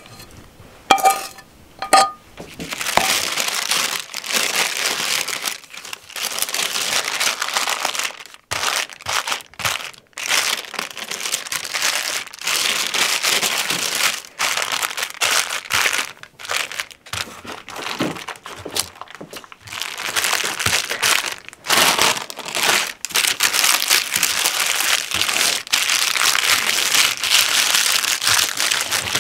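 Baking parchment crinkling and rustling as it is folded and pressed by hand over a layer of caramelized chopped nuts, with brittle crackling from the hardened nut mix; it comes in long irregular stretches with brief pauses. A couple of light clinks near the start.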